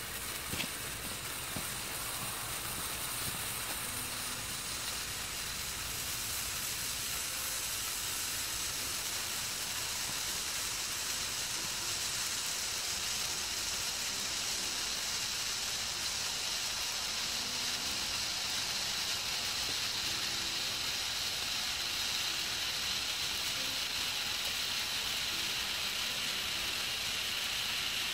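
Red pyrotechnic torch (Lesli Event Torch Red) burning with a steady hiss, with a short pop about half a second in.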